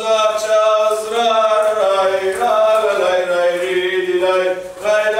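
Zeybek folk dance music: a slow melody of long held notes sliding between pitches over a steady drone, with a brief drop in level near the end.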